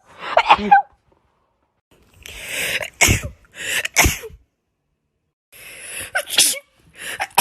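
A run of about four human sneezes with short silences between. Each is a breathy build-up that ends in a sharp burst.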